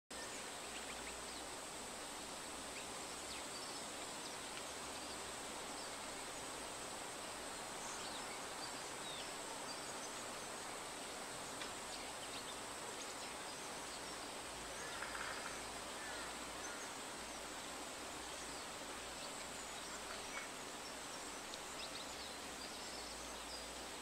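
Faint steady background ambience with a thin, constant high-pitched drone and light wind rumbling low on the microphone.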